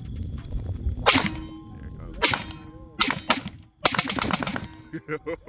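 Q Sugar Weasel AR-15 in 5.56 with a muzzle brake, firing a string of sharp, loud shots. They come about a second apart at first, then quicken into a fast run of shots about four seconds in.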